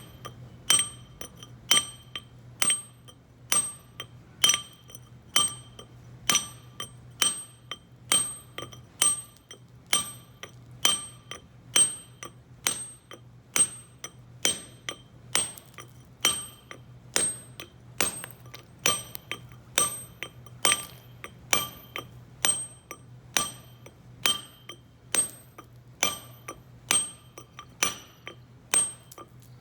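Steel chisel struck with a stonemason's hammer (settou) to chip granite, in steady strokes about one and a half a second. Each blow lands sharply and rings with a clear metallic ping.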